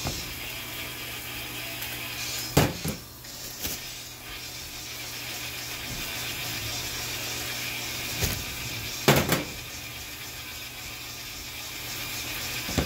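Burgers and eggs sizzling steadily on a flat-top griddle. A few sharp knocks and clatters of handling come over it: two about two and a half to four seconds in, and the loudest around nine seconds in.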